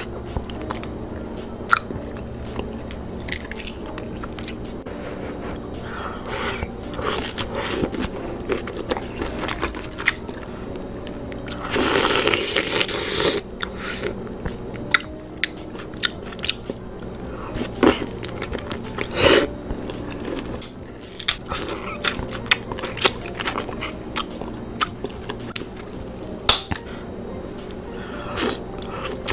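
Close-miked eating of snow crab legs and shrimp in sauce: wet chewing, smacking and biting with many sharp clicks and crunches, and one longer, louder noisy stretch about twelve seconds in. Soft background music runs underneath.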